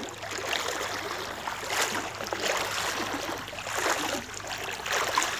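Shallow floodwater sloshing and splashing irregularly as people wade and move through it.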